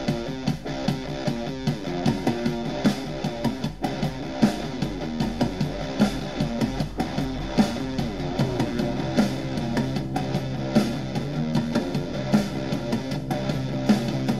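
Guitar-led alternative rock music played back through an Eggel Fit-series Bluetooth speaker for a sound test.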